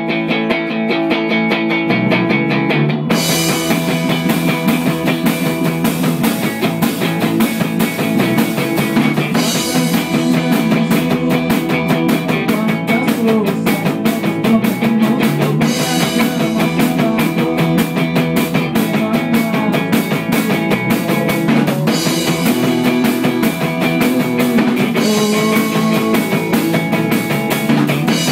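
A rock band playing live through amplifiers. An electric guitar plays alone at first. Bass notes come in at about two seconds and the drum kit with cymbals at about three, and the full band then plays a driving rock part, with cymbal crashes marking the sections every few seconds.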